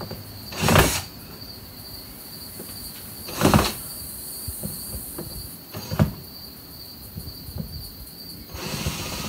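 Cordless drill-driver run in three short bursts, about a second, three and a half and six seconds in, trying to back out a screw that is stuck in an old window frame. A steady high chirring of insects underlies it.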